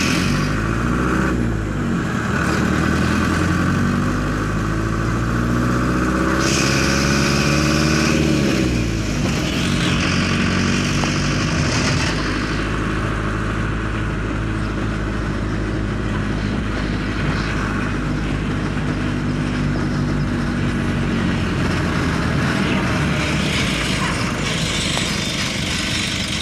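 A motor vehicle's engine running, its pitch rising and falling in the first few seconds as it speeds up and slows down, then holding steadier.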